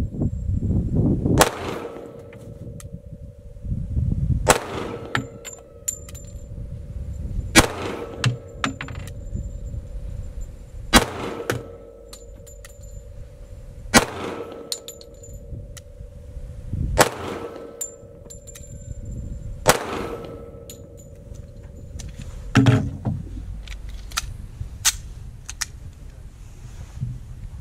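A .45 ACP semi-automatic pistol fired slowly, one shot at a time, about eight shots roughly three seconds apart. Near the end there is a duller knock with no more shots.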